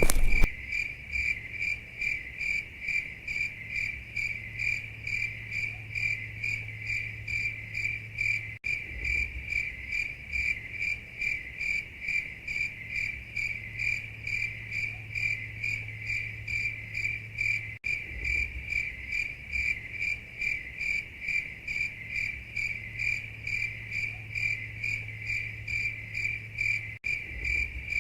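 Crickets chirping in a steady high-pitched pulse, several chirps a second, with a faint low hum beneath. It is a looped night-time ambience that briefly cuts out and restarts about every nine seconds.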